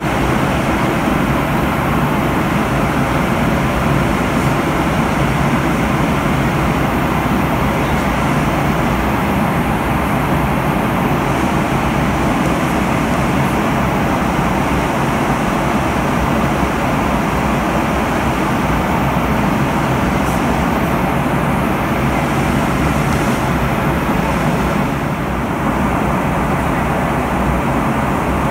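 Airliner cabin in flight: steady, loud engine and airflow noise.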